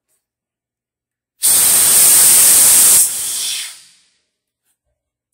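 Compressed air blasting out of the drain valve at the bottom of an air-compressor tank, blowing out condensate water. It comes on suddenly about a second and a half in, runs loud for about a second and a half, drops to a weaker hiss and fades out about a second later as the valve is closed.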